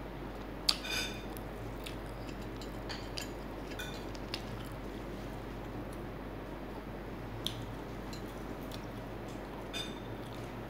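Eating fried chicken by hand: scattered crisp crunches, tearing and chewing mouth sounds over a steady background hiss, with one sharp click about a second in.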